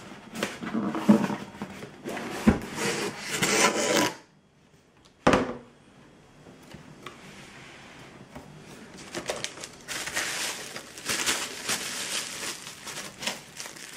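A cardboard box lid scraping and sliding open for about four seconds, a single sharp knock about five seconds in, then plastic bubble wrap crinkling and rustling as it is handled.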